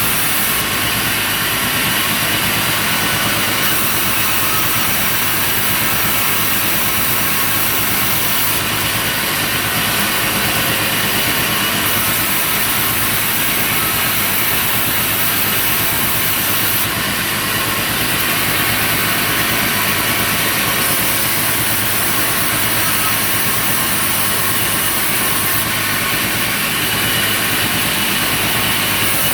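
Sawmill machinery running steadily: a continuous motor drone under a dense high hiss, the hiss stepping up and down every few seconds.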